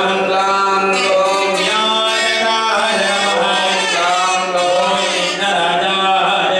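Male voices chanting Sanskrit mantras over a steady low held tone.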